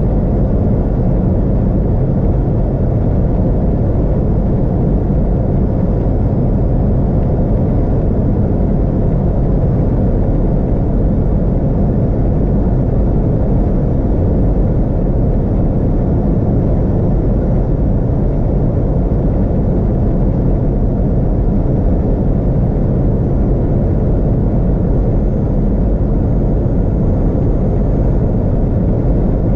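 Steady road and wind noise from a car driving at highway speed: a constant low rumble that holds at one level throughout.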